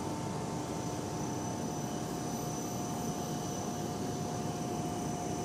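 Drilling rig machinery running: a steady, noisy drone with a couple of constant whining tones over it, unchanging throughout.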